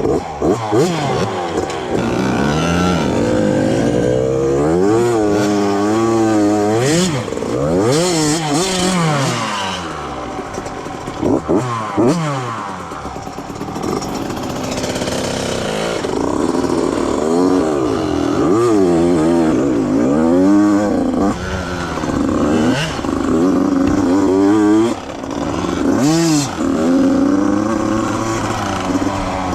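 Small 85cc two-stroke dirt bike engine being revved, its pitch climbing and falling over and over, with a few brief bursts of hiss mixed in.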